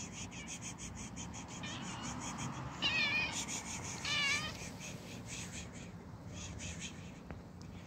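Domestic cat meowing twice, two short wavering meows about a second apart, as it comes up to be petted.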